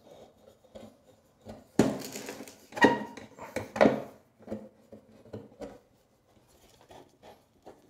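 Screwdriver working a screw out of a sheet-metal oven door, with scattered clicks, scrapes and metallic clinks as the door panel and tools are handled on a wooden table; the sharpest knocks come about 2, 3 and 4 seconds in.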